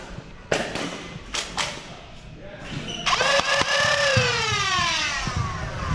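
Nerf flywheel blaster motors: a few sharp clacks in the first second and a half, then about three seconds in the motors spin up with a sudden whine that holds briefly and then falls steadily in pitch as the flywheels spin down.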